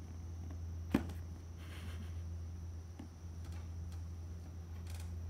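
A single sharp knock about a second in, then brief rustling and a few faint ticks, over a steady low hum: a kitten playing with its toys.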